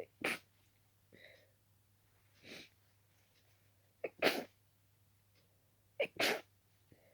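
A person sneezing three times, the loudest about four seconds in, with softer breaths between. It is a sneezing fit from an itchy nose, which the sneezer puts down to dust raised by dusting the room.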